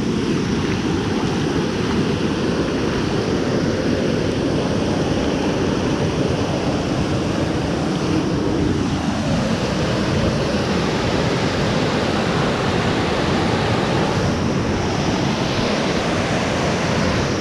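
Waterfall: a steady, loud rush of falling water close by.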